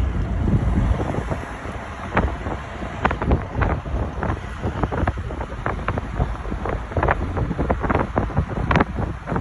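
Wind buffeting the microphone, with a low rumble strongest in the first second and many irregular sharp clicks and knocks.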